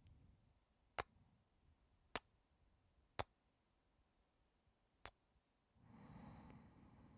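Four sharp, short kiss smacks close to the microphone, spaced about one to two seconds apart, followed near the end by a soft breath out with a faint whistle in it.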